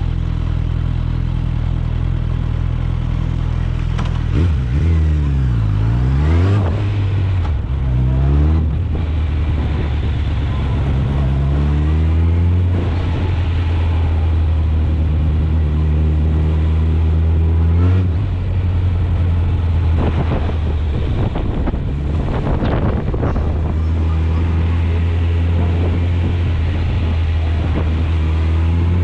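Suzuki GSF 650 Bandit's inline-four engine through an Akrapovic exhaust, heard on the move: a steady running note that rises and falls in pitch several times between about four and nine seconds in as it revs and shifts gear, holds steady, then climbs again about twenty seconds in.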